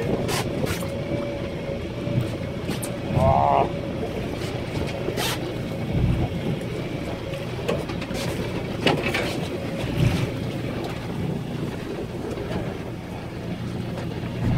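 Small boat's engine running steadily, with choppy water slapping against the hull. A brief rising squeal about three seconds in, and a few knocks later on.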